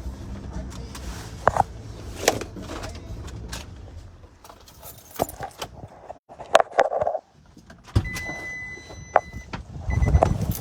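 A vehicle stopping and being got out of: a low engine rumble fades out about four seconds in, followed by clicks and knocks of keys and a car door, and a steady electronic chime sounds for about a second and a half near the end.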